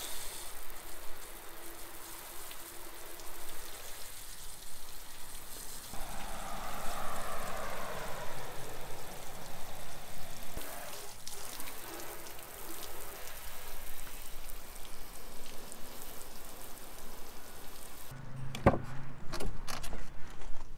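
Garden hose spray nozzle showering water onto the pickup's cab roof and back, a steady hiss of spray on painted metal and glass during a leak water test. Near the end the spray stops and a few sharp clicks follow.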